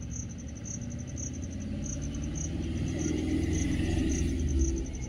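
A low vehicle rumble swells about three seconds in and drops off near the end, like a vehicle passing on the road. Under it runs a steady, fast, high-pitched insect chirping.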